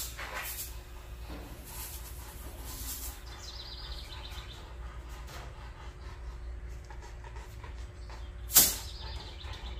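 A truck's front air-ride bag being filled with air as the front end lifts: a faint steady hiss and hum, a short falling squeak about four seconds in, and one sharp knock near the end.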